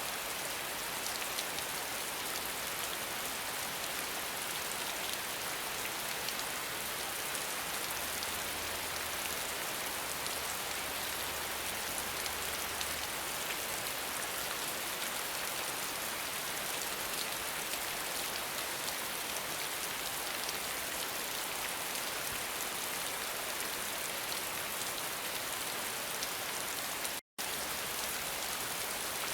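Steady rain falling, an even hiss with fine drop taps throughout. It cuts out completely for an instant near the end.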